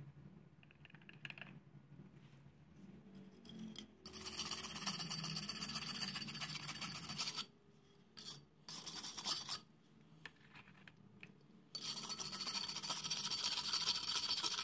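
A brush scrubbing loosened rust off the steel blade of a small masonry trowel, in two steady bouts: one about four seconds in lasting some three seconds, and another from about twelve seconds in.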